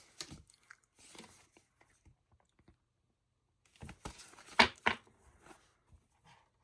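Character cards and their packaging being handled: light rustling and sliding, then a burst of louder rustles with a few sharp taps and clicks about four to five seconds in.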